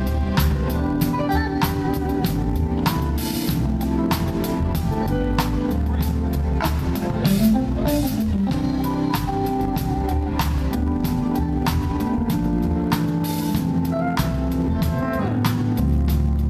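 A band playing instrumental music: a drum kit keeping a steady beat over bass guitar and electric guitar.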